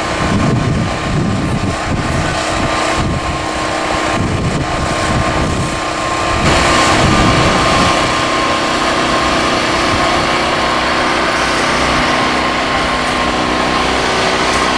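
Portable gasoline generator running steadily with a constant engine drone, getting a little louder about six and a half seconds in.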